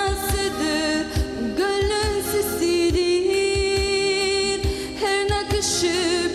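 Live performance of a Turkish pop-folk song: a voice holds long, gently bending melody notes over band accompaniment with a steady low drum beat.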